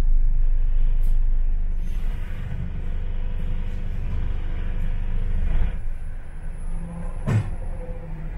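A London bus running, heard from inside the bus, with a steady low engine rumble that drops away about two-thirds of the way through. A single sharp knock comes near the end.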